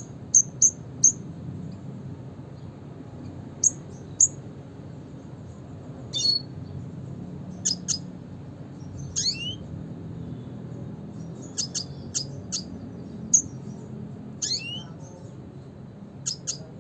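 Red siskin calling: short, high chirps that come singly and in quick runs of two to four, with a few notes that sweep sharply downward, over a low steady background hum.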